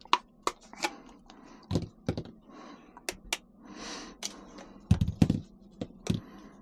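Irregular sharp clicks and taps, with a few heavier knocks about two seconds in and again near five seconds, from the stock grips being taken off a DYE MXR paintball marker.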